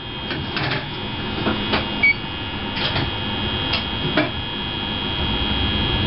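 Cab of an ET 420 S-Bahn electric multiple unit standing at a platform: a steady hum and high whine from the onboard equipment, with scattered clicks and knocks and a short beep about two seconds in.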